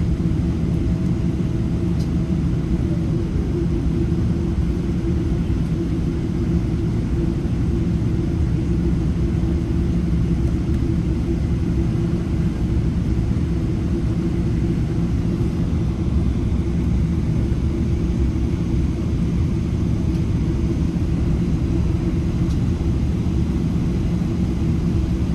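Steady low cabin rumble inside a Boeing 787 Dreamliner on the ground after landing, taxiing in. A faint tone in the first few seconds slides down and fades about three seconds in.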